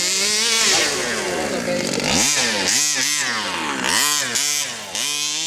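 A radio-controlled car's small engine revving. Its pitch falls away over the first two seconds, then it is blipped up and down about six times in quick succession.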